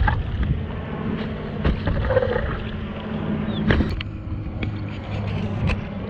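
Stand-up paddleboard paddle strokes through calm sea water, a sharp splash or knock about every two seconds over a steady rushing noise.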